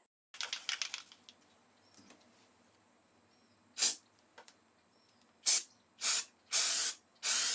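Aerosol spray can of waterproof primer spraying in about five hissing bursts, the later ones longer, after a brief clicking rattle near the start.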